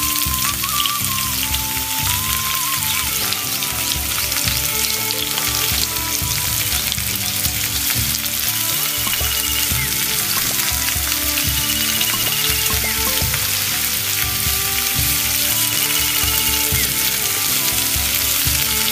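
Whole fish sizzling as it fries in hot oil in a small clay pot, a steady crackling hiss, with background music underneath.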